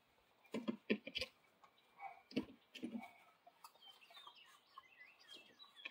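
Chickens clucking: a few short, loud clucks in the first three seconds, then a run of fainter, quick, high calls.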